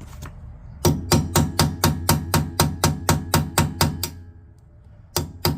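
Hammer blows driving a T30 Torx bit into a stripped set screw on a Smart car's rear brake drum, metal on metal. There are about fourteen quick ringing strikes at about four a second, then a pause and two more near the end.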